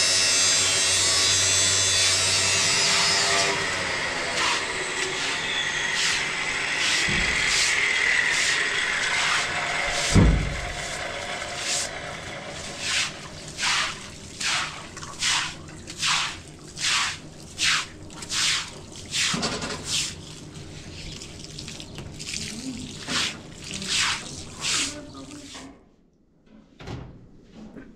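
A small electric motor running, then winding down after about three seconds. A single thump follows about ten seconds in, then a long run of rhythmic scraping strokes at about one and a half a second that stops shortly before the end.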